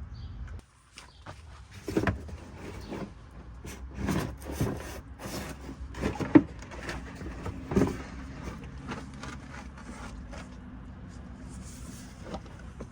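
A handful of sharp clunks and knocks from oil-change gear being handled under a truck, over a steady low hum. The hum drops out briefly about a second in.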